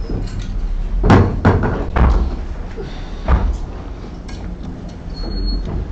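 Several sharp knocks and thuds, the loudest about a second in and more around two and three seconds in, over a steady low rumble of room noise in a large hall.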